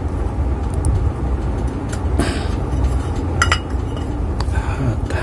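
Metal clinks and scraping as the two halves of a small fan motor's steel housing are pulled apart, with a few sharp clinks about three and a half seconds in, over a steady low rumble.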